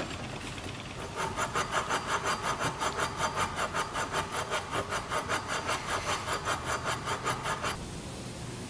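A brass airbrake slide valve from a 6BL brake being lapped against its seat with lapping compound, to smooth out scratches that let air leak past. It makes a fast, gritty back-and-forth rubbing, about five strokes a second, that starts about a second in and stops shortly before the end.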